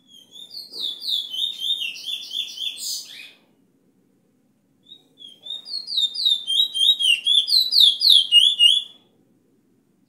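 Caged bullfinch kept as a teacher bird singing two phrases of quick, repeated down-slurred whistled notes, each phrase about three to four seconds long with a pause of about a second and a half between them.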